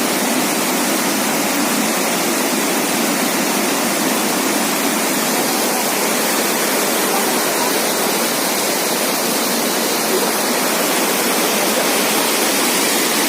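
Waterfall: water pouring and crashing down in a steady, loud rush.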